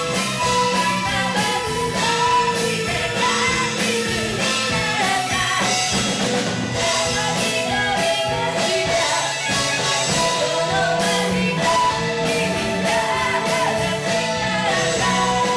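Live rock band: a woman singing lead over electric bass, electric guitar and drums with a steady beat.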